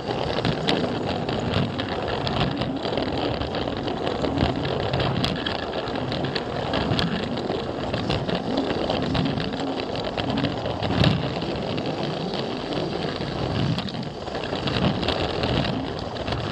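Plarail toy train with an on-board camera car running along plastic track, its small battery motor whirring and its plastic wheels rattling, with frequent clicks over the track joints.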